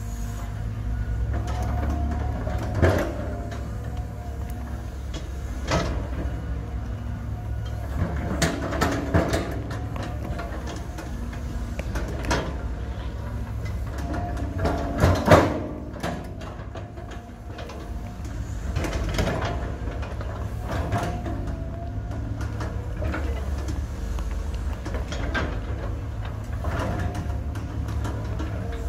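Cat 320 hydraulic excavator working: its diesel engine runs steadily under a held hydraulic whine while the bucket scrapes and pushes soil and rock. Irregular clanks and knocks from the bucket and linkage come every few seconds, with the loudest pair about 15 seconds in.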